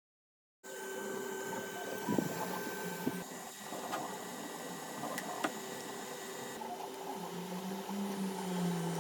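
3D printer running: a steady whir with motor tones and a few sharp clicks, and a low tone that rises and falls near the end as a motor changes speed.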